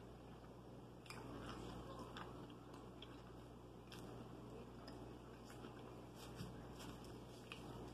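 Faint close-up chewing of a bite of hot ham and cheese sub: soft, moist mouth sounds with scattered small clicks.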